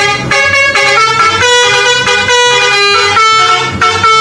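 Indonesian 'telolet' bus horn playing a tune: chords of several horn tones held together, stepping to new pitches about every half second.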